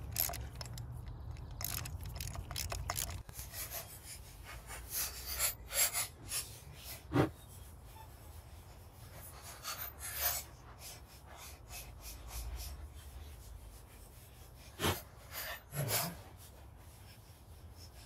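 Hand ratchet on a long extension with a 5/8-inch spark plug socket, loosening and backing spark plugs out of a Saab 9-3's cylinder head. It gives irregular clicks, scrapes and small metal clinks in clusters with pauses between them, over a low steady rumble.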